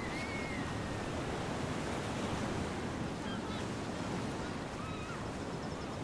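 Ocean surf washing onto a beach in a steady, unbroken wash, with a few faint short high whistles that rise and fall.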